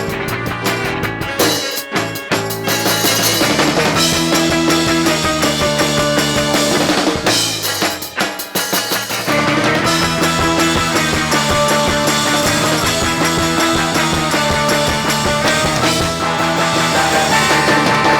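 Live rock band playing an instrumental break with drum kit, choppy stop-start hits in the first few seconds and again about eight seconds in, between stretches of sustained chords.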